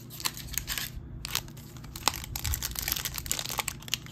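Trading-card pack wrapper crinkling and crackling as it is handled, a dense run of irregular small crackles.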